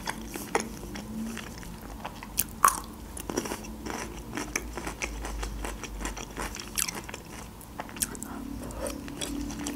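Mouth sounds of eating: chewing and crunching a bite of pickled cucumber, with sharp wet crunches scattered through, the loudest about two and a half seconds in.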